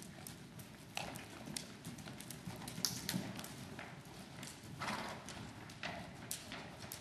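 Hooves of horses striking the arena footing as they trot and canter: a quick, uneven run of hoofbeats.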